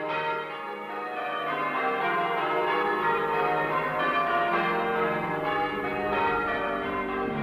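Church bells pealing: many bells struck one after another, their tones overlapping and ringing on.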